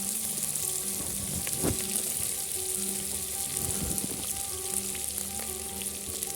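Onions frying in hot oil until brown, a steady sizzle, with a couple of brief knocks from stirring about a second and a half in and near the middle.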